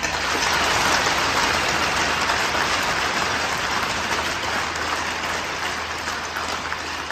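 Crowd applauding in an ice hockey arena, loudest about a second in and slowly fading.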